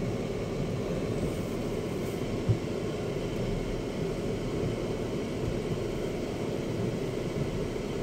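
Cabin noise inside a Chery Tiggo 7 Pro rolling slowly over a wet, muddy dirt track: a steady low rumble of tyres and drivetrain, with one knock about two and a half seconds in.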